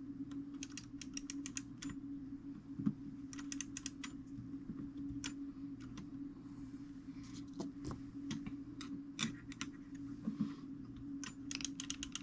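Quick runs of small metallic clicks from a fusee clock movement's ratchet click ticking over as the brass cable is wound onto the fusee cone. A steady low hum runs underneath.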